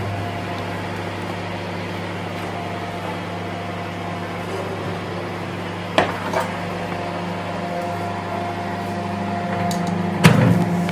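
IFB convection microwave oven humming steadily, its fan still running after the bake has ended. There is a sharp knock about six seconds in and a louder metallic clank near the end as the hot metal loaf tin is taken out.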